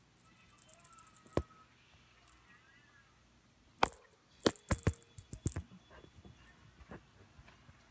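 Light metallic jingling and clinking: a few soft jingles about a second in, then a run of sharp clinks from about four to five and a half seconds in, like a small bell on a cat toy being shaken.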